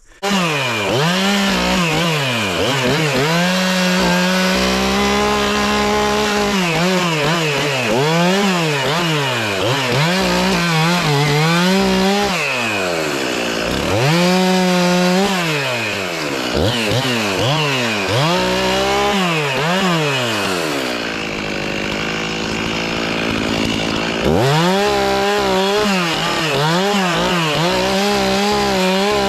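Two-stroke chainsaw cutting wood, its engine note climbing and falling every second or two as the throttle is worked. About three quarters of the way through it drops to a lower, steady run for a few seconds, then revs up and cuts again.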